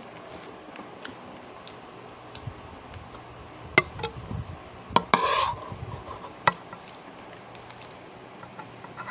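Eating by hand from a plate: fern greens are handled and picked up, with three sharp clicks in the middle and a short, rasping burst just after the second. A steady electric fan hum runs underneath.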